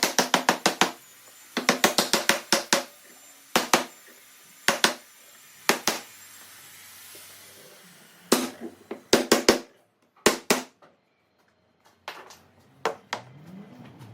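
Rapid runs of sharp knocks, several a second, in bursts with short pauses between, followed by softer scattered clicks near the end.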